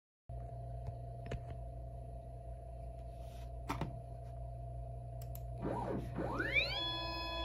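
A steady low hum with a few faint clicks, then from about six seconds in NEMA 23 stepper motors whine as the CNC axes move under G-code: each move is a tone that rises in pitch, holds, and falls again as the motor speeds up, runs and slows down.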